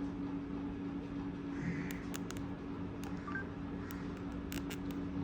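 Light clicks from the buttons of a Samsung Metro 313 keypad phone being pressed, about eight scattered over a few seconds, over a steady low hum.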